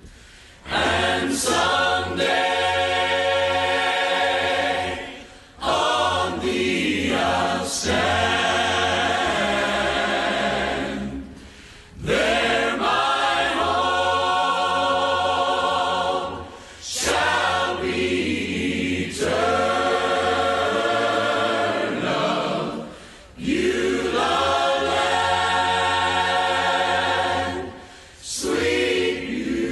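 A choir singing a slow song in long held phrases, each about five seconds, with short breaks between them.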